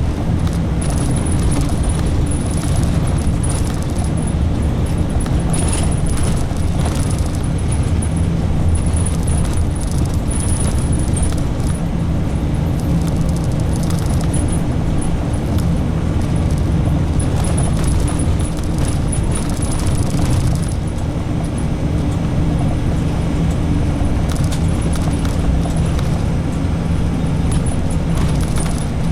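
Inside a route bus under way: the engine's steady low drone and road noise, with occasional light rattles and knocks from the bodywork.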